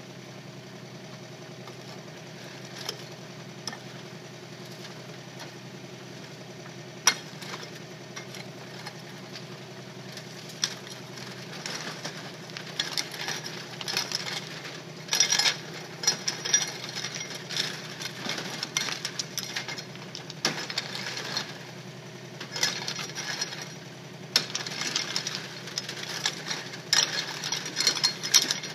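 Kubota K008-3 micro excavator's diesel engine running steadily, with stony soil clattering as it is dug and screened. The clatter starts with a few sharp knocks about seven seconds in and becomes a dense rattle of stones from about twelve seconds on.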